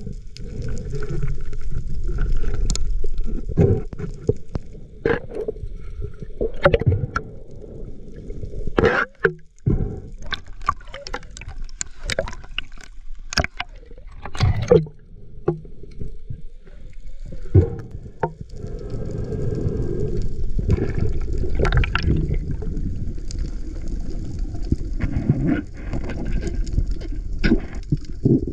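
Sea water sloshing and gurgling around the camera, a steady low rumble broken by many sharp clicks and knocks, with a brief lull a little after a third of the way in.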